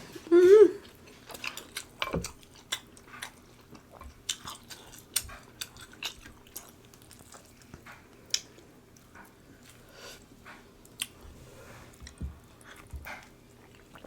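Close-miked eating sounds from a seafood boil: chewing, wet lip smacks and sharp clicks, scattered irregularly. A short hummed "mmm" comes in the first second.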